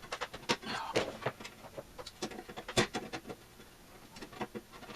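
Irregular clicks and scrapes of hands and a tool working at the power cord's strain relief where it passes through the signal generator's case, trying to pull the stuck cord free, with one sharper knock a little under three seconds in.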